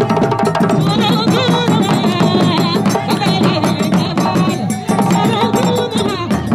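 Malian Khassonké dance drumming: djembes and dundun drums playing a fast, dense rhythm together, with a high wavering voice over the drums for the first few seconds.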